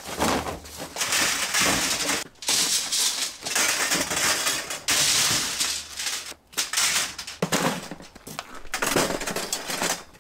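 Scrap copper tubing being unloaded by hand: coils and short lengths of copper pipe and foam-insulated line set scraping, rustling and clattering against each other, in bursts with short pauses.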